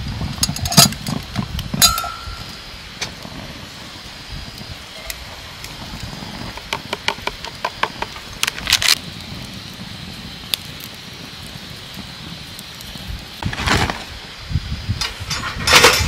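Wood campfire crackling over a low steady rumble, with clinks of a metal kettle and steel cup being handled, one short metallic ring about two seconds in. Louder rustling of packaging starts near the end.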